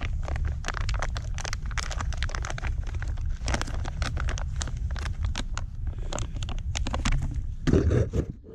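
Rapid, irregular crackling and crinkling of camping gear being handled and rummaged through, over a steady low rumble, with a louder rustle near the end.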